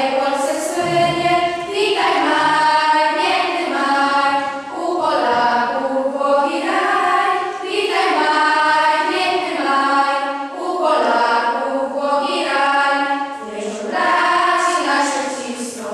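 A girls' school choir singing in Polish without accompaniment, in long held notes with short breaks between phrases.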